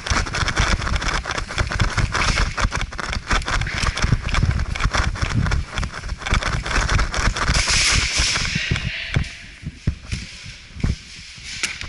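Fast footsteps and the knocking and rustling of gear on a running airsoft player, with a rushing brush-like noise about eight seconds in.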